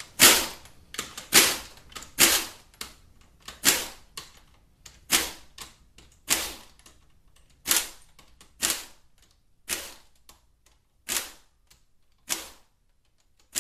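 Air ratchet run in about a dozen short bursts, roughly one a second, backing out the bolts that hold a transmission's solenoid pack to the valve body.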